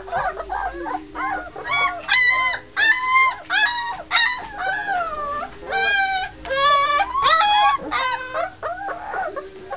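Three-week-old White Swiss Shepherd puppies whining and yelping in a rapid run of short, high calls, many rising then falling in pitch, sometimes two at once.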